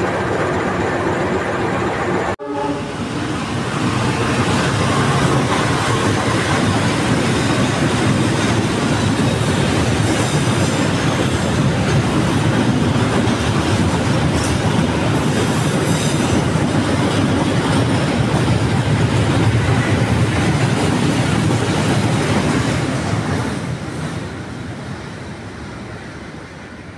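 KAI CC 206 diesel-electric locomotive hauling a train of fuel tank wagons pulls out and rolls past at close range. The noise builds over the first few seconds, holds steady, then fades near the end as the last wagons go by.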